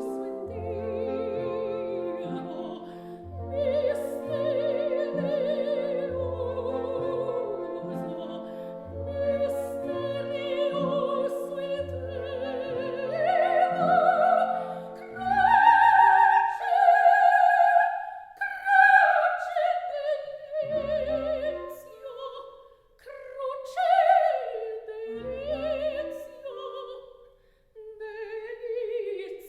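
Background music: an operatic singing voice with orchestral accompaniment.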